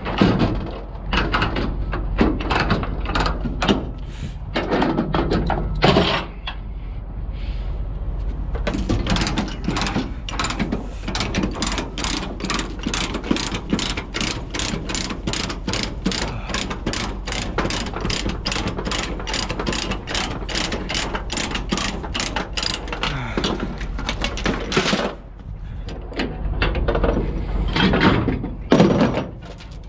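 Hand ratchet being cranked, giving an even run of sharp clicks about two to three a second, with scraping and clanking at the start and near the end. This is typical of releasing or working the chain binders or straps that hold a backhoe on a trailer.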